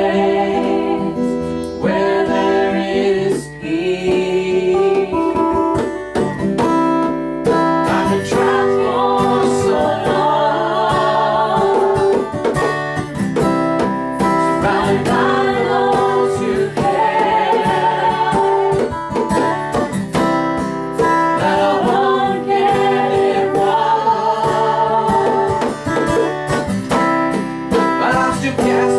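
Folk band playing: strummed acoustic guitar under a fiddle melody with wavering, vibrato-like held notes.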